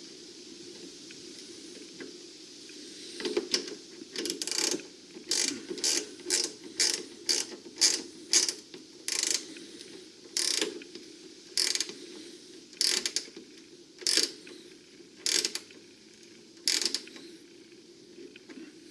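Hand ratchet wrench tightening the ground-cable bolt against the car body: a run of short ratcheting clicks, one burst per back-swing, starting a few seconds in and coming further apart toward the end.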